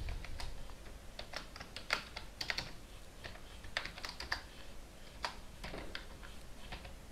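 Typing on a computer keyboard: keys tapped in short irregular runs with brief pauses between them.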